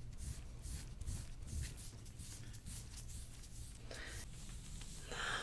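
Faint rubbing and rustling of hands working over a patient's skin and clothing on a treatment table, over a low steady hum. Two brief soft sounds come near the end.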